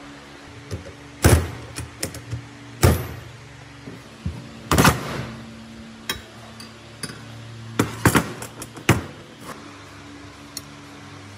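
Metal knocks and clinks of hand tools and steel parts as a rusty fluted feed-roller assembly is taken apart: about five loud knocks with short ringing among lighter clicks, over a steady low hum.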